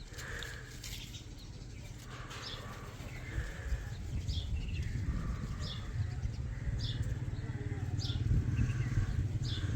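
Baby Indian ringneck parrot giving short, high chirps, about one a second. Under them is a low rumble that grows steadily louder from about a third of the way in.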